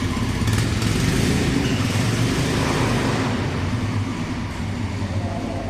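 Royal Enfield Himalayan's single-cylinder engine running steadily, slowly growing fainter as the motorcycle moves off.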